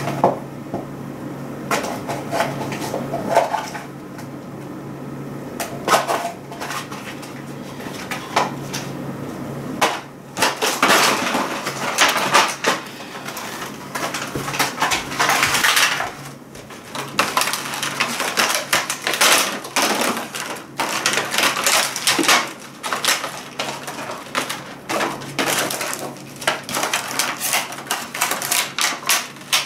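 Toys and their plastic packaging being handled and sorted by hand: crinkling plastic and many small knocks and clatters, growing busier about ten seconds in, over a faint steady hum.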